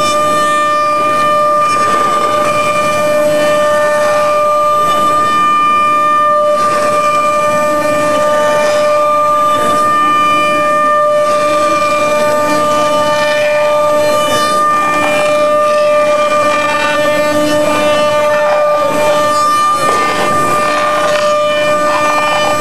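CNC router spindle running at speed and cutting, a steady high whine with a cutting noise that rises and falls as the bit moves through the material. The router is a Patriot OrthoRoute with a 5 horsepower automatic-tool-change spindle.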